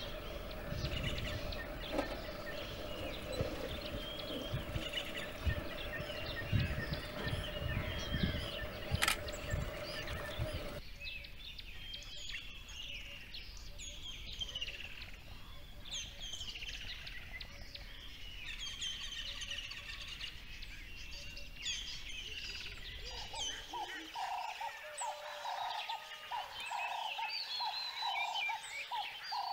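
Mixed wild birdsong: many birds chirping and whistling at once, over low thumping noise in the first ten seconds or so. From about 24 seconds a bird's call of evenly repeated notes, about two a second, joins the chorus.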